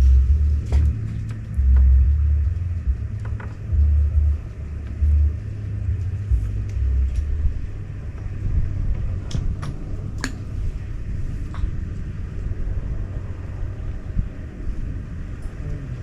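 Low rumbling wind buffeting the microphone in irregular gusts, easing after the first several seconds, with a few sharp clicks partway through.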